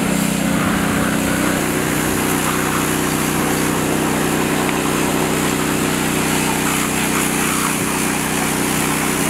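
Pressure washer running steadily: a constant motor-and-pump drone with the hiss of the water jet spraying onto a muddy dirt bike.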